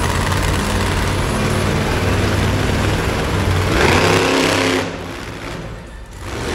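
Monster truck engine running loud, revving up about four seconds in, then easing off briefly before picking up again near the end.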